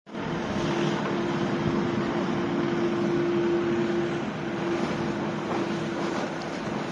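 Biomass-fired 15 t/h steam boiler plant running: a steady, even machinery noise with a constant hum through it.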